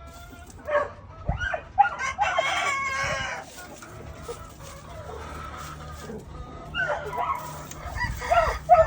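Rooster crowing: one long crow about two seconds in, with shorter clucking calls before it and several more near the end.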